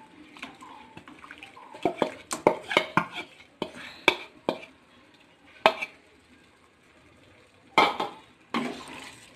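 Wooden spatula knocking and scraping against a metal kadai as marinated chicken pieces are added to the masala. There is a quick run of sharp clicks, then a single knock, and two longer clatters near the end.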